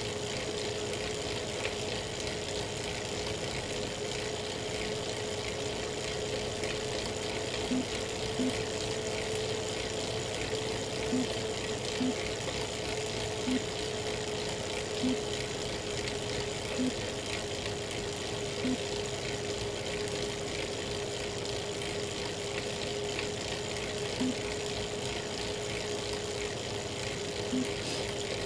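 Elite Real Turbo Muin B+ fluid trainer whirring steadily under a pedalling rider, with about ten sharp cracks at irregular intervals, one every one to three seconds, starting about a quarter of the way in. The cracking is the fault noise this trainer makes at any cadence once power goes over 200 watts.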